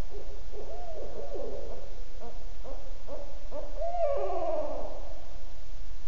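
Barred owl giving its rhythmic 'who cooks for you, who cooks for you all' hooting: a run of short hoots, then a longer hoot that slides down in pitch near the end.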